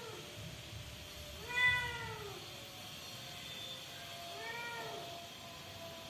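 Young kitten meowing: two clear meows, each rising then falling in pitch, about a second and a half in and again about four and a half seconds in, the first the louder.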